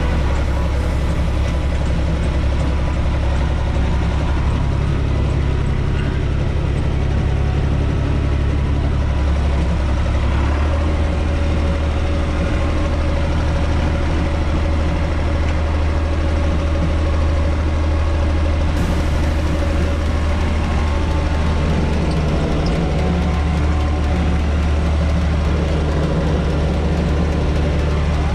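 UTB 445 tractor's diesel engine running steadily while the tractor drives over tilled ground with its rotary tiller, heard from inside the cab, its note shifting slightly about ten seconds in.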